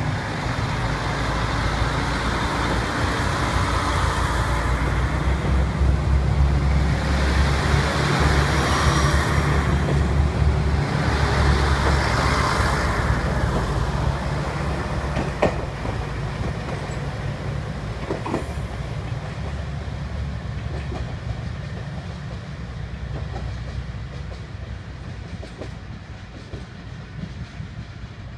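JR Shikoku 2000 series diesel railcars accelerating away from a station, the diesel engines droning and stepping up under power as the cars rush past. The wheels click over rail joints as the tail car goes by about halfway through, and then the sound fades as the train pulls away.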